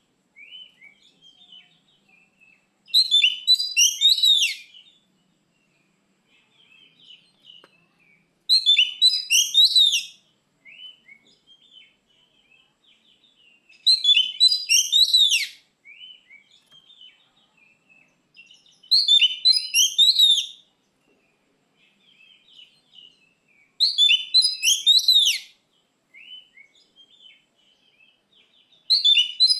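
Oriental magpie-robin (kacer) singing: loud, rapid, high-pitched warbling phrases about a second and a half long, coming about every five seconds, with softer scratchy chatter between them.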